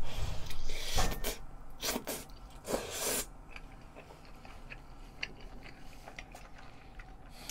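Close-up sounds of a person biting into and chewing a long, chewy rice cake coated in gochujang tteokbokki sauce. A few loud, wet bursts come in the first three seconds, then quieter clicks of chewing.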